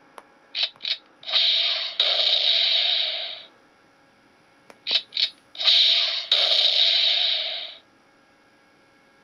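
Aliens M41A pulse-rifle prop sound effects played by an electronic light-and-sound kit through its small speaker. They come twice: each time two short sharp sounds, then about two seconds of sustained effect sound with a brief break partway.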